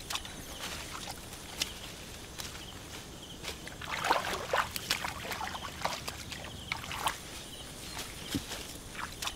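Hands splashing and sloshing in shallow muddy water while groping for fish, in irregular splashes with a louder flurry about four seconds in.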